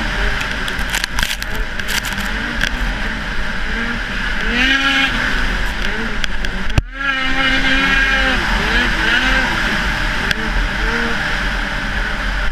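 Ski-Doo snowmobile engine running hard at racing speed, its pitch rising and falling as the throttle is worked, over a steady rush of wind. A single sharp knock comes about seven seconds in, with a momentary drop in level.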